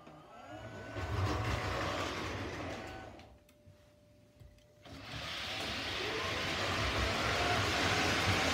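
O scale model trains running on the layout: motors and wheels rumbling along the track. The rumble swells in the first second, drops away almost to quiet for about a second and a half near the middle, then rises again and holds steady as a train of tank cars passes close by.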